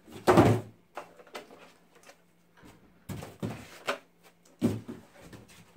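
Foam packing and cardboard being handled as a boxed ceiling access point is lifted out: one loud rustling scrape about half a second in, then scattered softer rustles and knocks.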